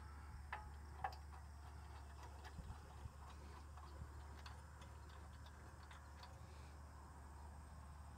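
Faint, scattered light metallic clicks and ticks, with two sharper ones in the first second, as a new spark plug is threaded by hand into the V-twin engine of a Generac-built home standby generator. A faint low hum runs underneath.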